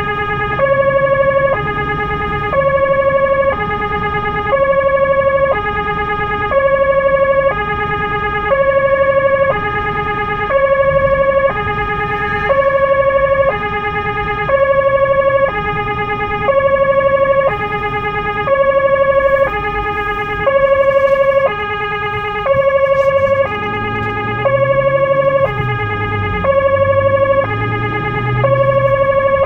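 Two-tone emergency vehicle siren, heard from inside the cabin of the car carrying it. It switches steadily back and forth between a higher and a lower note, each held just under a second.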